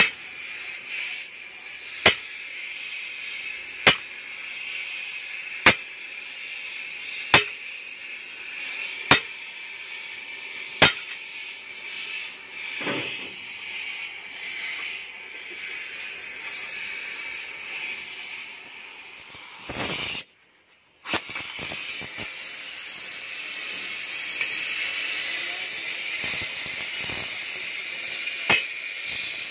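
Oxy-acetylene cutting torch hissing steadily as it cuts an excavator's steel track chain, while a sledgehammer strikes the steel track links about every two seconds, seven blows in the first eleven seconds or so. After that the torch hiss goes on alone, with a sudden brief break in the sound about two-thirds of the way through.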